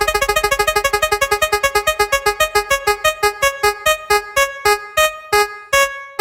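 Prize-wheel spinning sound effect: rapid plinking electronic keyboard notes that slow steadily from about ten a second to one every half second, as the spinning wheel winds down to a stop.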